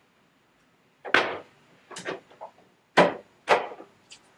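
A white high-gloss table leaf knocking against the metal telescopic frame of an expandable dining table as it is set into place: four sharp knocks over about two and a half seconds, starting about a second in, with a few lighter taps between them.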